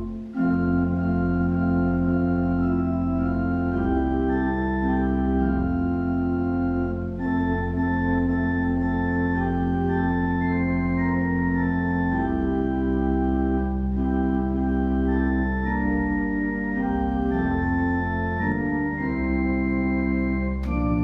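Church organ playing slow, sustained chords over a low bass line, the harmony changing every second or two, with a brief break just after the start.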